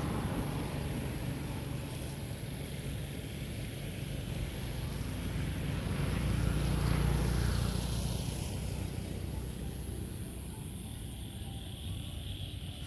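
A motor vehicle's engine going by, a low rumble that swells to its loudest about halfway through and then fades.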